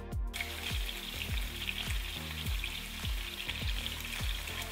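Chicken breasts sizzling in hot olive oil and butter in a frying pan. The hiss starts suddenly about a third of a second in as the raw meat hits the fat, then holds steady. Under it runs a regular low beat of background music, a little faster than once a second.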